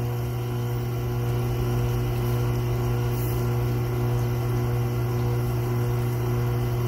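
Tormek sharpening machine's electric motor running steadily with a low hum as its wheels turn idle, with no tool on the wheel.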